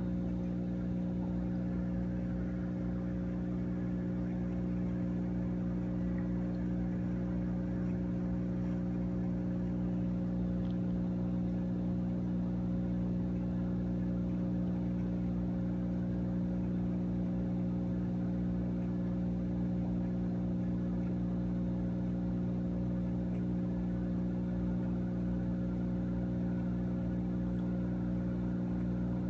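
Steady mechanical hum of an aquarium pump, several fixed low tones held without change.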